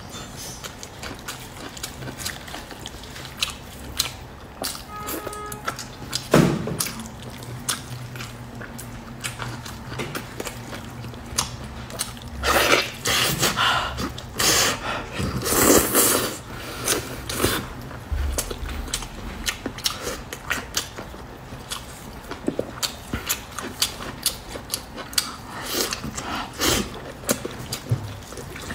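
Close-miked eating sounds: wet mouth clicks, smacking and chewing of soft braised meat, with gloved hands tearing the meat apart. The loudest stretch is a run of biting and chewing about twelve to seventeen seconds in.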